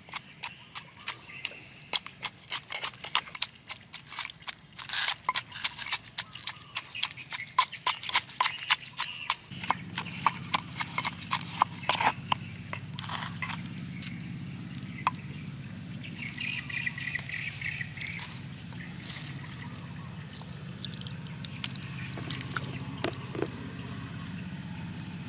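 Wooden pestle pounding a wet chili, garlic and herb sauce in a wooden mortar: quick hollow knocks, several a second, thinning out after about twelve seconds. A steady low hum comes in about ten seconds in.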